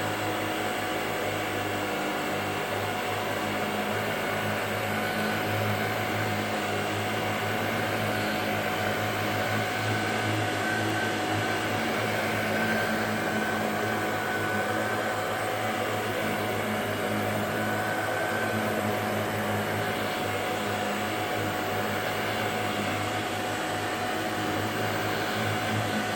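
Shark DuoClean NV801UK upright vacuum cleaner running steadily, a constant motor hum with a thin whine over it.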